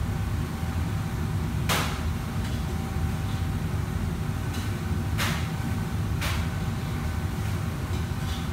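Steady low rumble of a commercial kitchen's wok range and extractor hood, with a faint steady whine. Three short scraping strokes of a ladle in a wok come about two, five and six seconds in.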